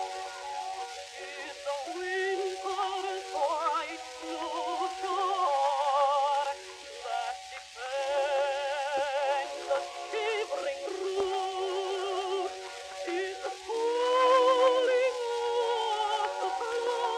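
A contralto singing with wide vibrato over accompaniment, played from a worn 78 rpm gramophone record. The early recording is thin, with no bass, and has a steady surface hiss.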